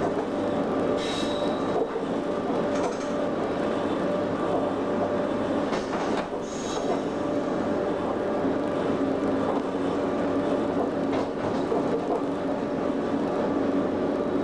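Cab of a Class 87 25 kV AC electric locomotive at speed: steady rumble of wheels on rail with a constant motor hum, and a few brief high squeals in the first seven seconds as it runs over pointwork.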